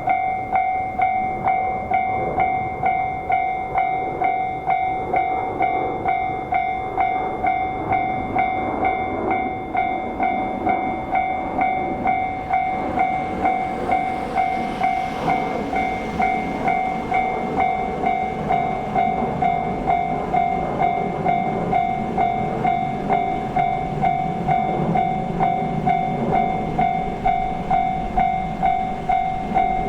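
Japanese level-crossing warning bell ringing in a steady, even 'kan-kan' rhythm throughout, while a train runs through the crossing, its rushing and rumbling noise swelling around the middle and second half.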